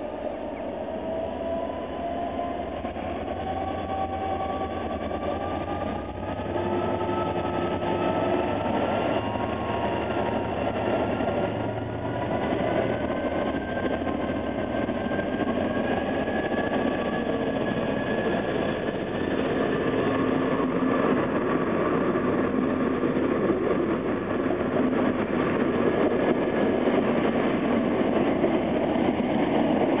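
Northern Ireland Railways 209, a 201 Class diesel-electric locomotive, approaching with its engine note rising in pitch and growing steadily louder. Near the end its train of intercity carriages runs past, the rumble of wheels on rails at its loudest.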